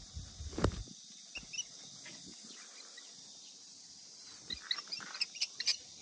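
Leaves and twigs of a bush rustling as a hand picks through them, with a sharp crackle about half a second in. A run of short, faint, high clicks or chirps follows in the last second and a half.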